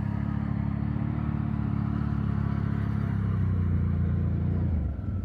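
Can-Am Renegade 1000 ATV's V-twin engine running at a steady, held throttle, then dropping off near the end.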